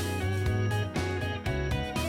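Background music: a guitar-led instrumental track with notes changing several times a second over a steady bass.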